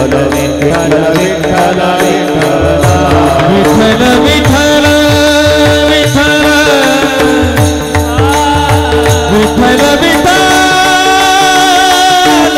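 Varkari kirtan chal: a group singing a devotional tune over a steady held drone, with a drum and small hand cymbals (taal) keeping the beat.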